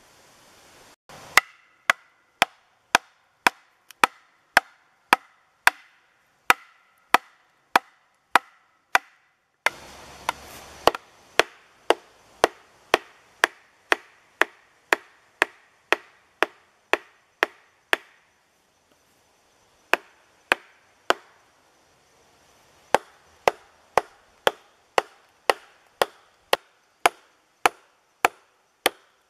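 Blows of a mallet on wood, hammering into a log at a steady pace of about two sharp knocks a second, each with a brief ringing note. The rhythm pauses briefly a few times.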